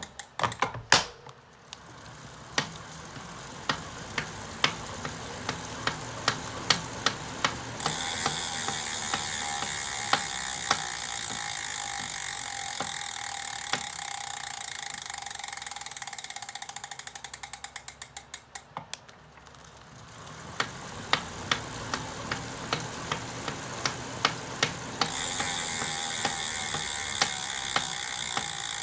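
Elite Direto direct-drive smart bike trainer running under pedalling with a steady high whir and a repeated sharp knock, about once a second, coming faster as it speeds up. This is an abnormal knock from the trainer. Partway through, the pedalling stops: the bike's freehub clicks rapidly while the flywheel runs down, then the pedalling, whir and knocking pick up again.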